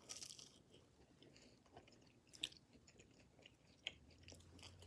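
Quiet close-up chewing of food, with wet mouth clicks and a few sharp crunches.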